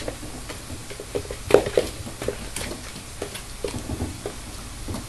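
American Hairless Terrier puppy's paws and claws tapping and scrabbling on cardboard boxes: scattered light taps and knocks, the loudest about a second and a half in.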